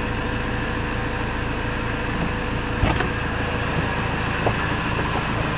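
Steady low hum and noise inside a car's cabin, with a couple of short clicks about three seconds in and again a second and a half later.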